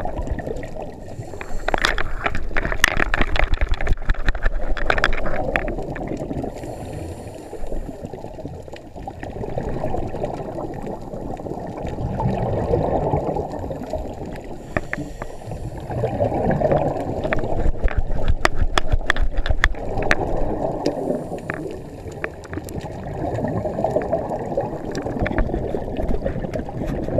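Scuba diver's exhaled bubbles from the regulator gurgling past the camera housing, swelling and fading every few seconds in time with the breathing, with scattered sharp clicks and knocks.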